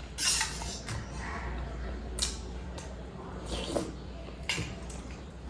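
Cutlery clinking and scraping on a plate while eating, about four separate short strikes, the loudest just after the start.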